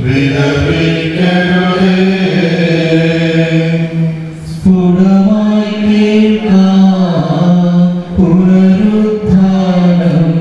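Male clergy chanting a liturgical prayer into microphones, in long phrases held on a near-steady pitch with short breaks between them.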